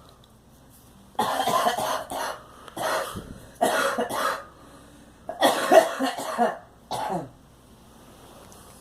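A girl coughing in five fits, from about one second in to about seven seconds in, with short pauses between them.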